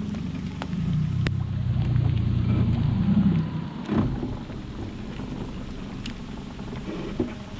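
Low steady rumble of a small fishing boat moving across the water, with wind on the microphone. It eases off about four seconds in, and a single knock follows.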